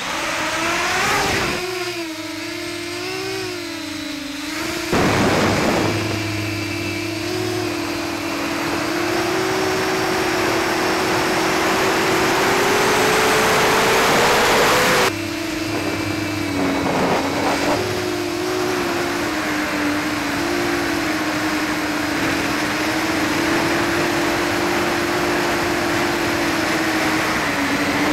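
Hubsan H501SS quadcopter's brushless motors, heard from its onboard camera, running on a 3S 11.1 V battery as it lifts off and flies, a steady hum whose pitch wavers with throttle. Heavy wind noise on the surface-mounted microphone, with stronger gusts around 5 seconds and again after about 12 seconds.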